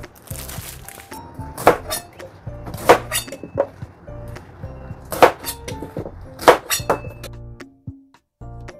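Cleaver chopping small napa cabbage heads on a plastic cutting board: sharp knocks, several in quick pairs, that stop about seven seconds in. Background music plays under them.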